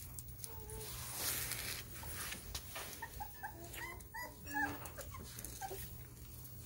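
Young puppies whimpering in a run of short, high squeaks, most of them about three to five seconds in, over a steady low hum.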